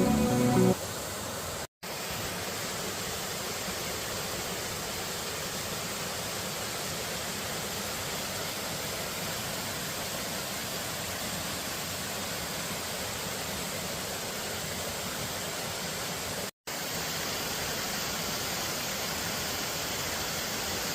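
Rushing mountain creek water pouring over cascades, a steady, even rush, twice dropping out for an instant.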